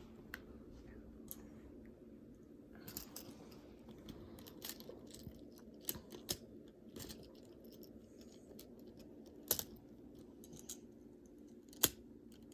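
Magnetic building toy pieces clicking and clacking as they are handled and snapped together, a scattered, irregular series of sharp clicks, with a couple of louder clacks near the end.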